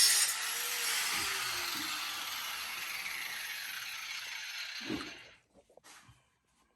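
A machine's mechanical whirring and rattling that slowly fades and drops in pitch, like a motor running down, then stops about five seconds in; a few faint clicks follow.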